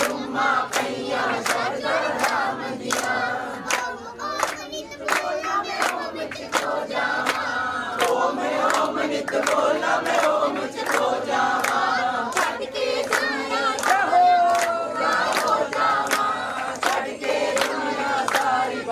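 A group of voices singing a devotional song together over a steady beat of hand claps.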